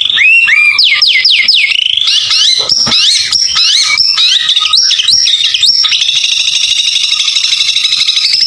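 White-rumped shama singing loudly: a rapid string of sharp whistles sliding up and down, changing about six seconds in to a fast, buzzy trill.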